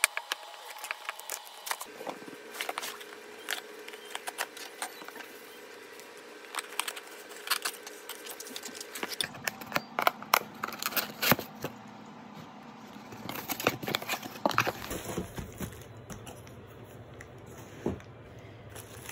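Cardboard box and plastic packaging being handled and opened: crinkling and rustling with many sharp clicks, crackles and tearing.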